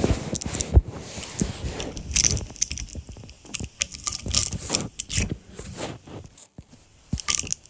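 Irregular handling noise: a string of clicks, crackles and scrapes, thinning out about six seconds in.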